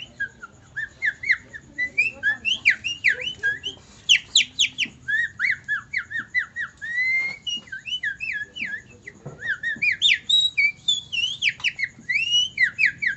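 A man whistling an imitation of a songbird's song: a fast run of short chirps and quick rising and falling whistled notes.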